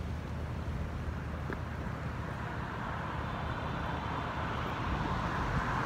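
Street traffic noise: a steady low rumble, with a passing vehicle's hiss growing louder over the second half.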